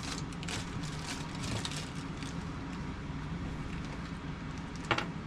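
Light crackling and clicking from handling a small package of scale ratchet straps, with a sharp click at the start and another near the end, over a steady low hum.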